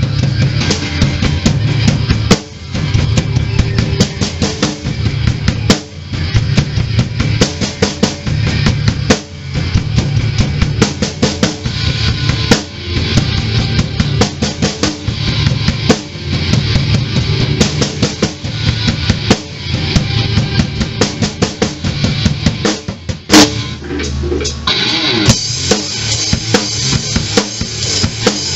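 Acoustic rock drum kit played in a steady, driving hard-rock groove on bass drum and snare. A single loud accent hits about 23 seconds in, and cymbals wash more brightly over the last few seconds.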